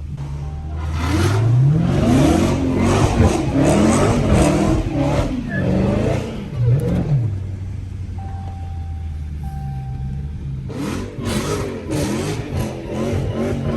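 Supercharged Hellcat V8 in a Dodge muscle car revving hard several times, its pitch climbing and falling, then running lower and steadier for a few seconds before revving again near the end. Two short steady electronic beeps sound midway.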